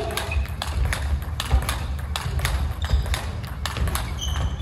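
Fast table tennis rally: the ball clicking sharply off the rubber bats and bouncing on the table, about three hits a second in a steady rhythm.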